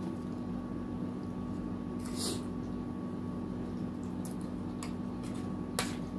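Close-up eating sounds of misua noodle soup: a few short wet slurps and cutlery clicks. They come over the steady hum of a room air conditioner.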